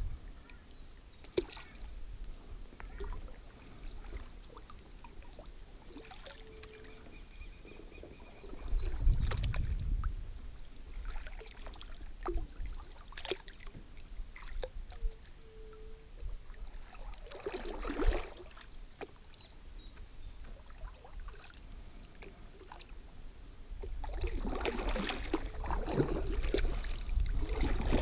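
Kayak paddling on a calm creek: paddle blades dipping and splashing, water dripping, and light knocks against the hull, heavier for the last few seconds. A steady high-pitched drone runs underneath.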